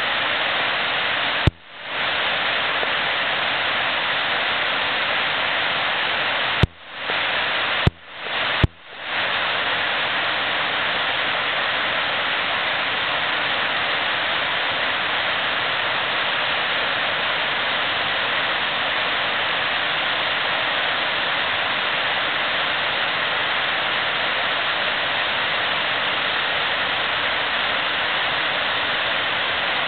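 Steady rush of river water through rapids. Four sharp clicks in the first nine seconds each cut the sound out briefly before it fades back in.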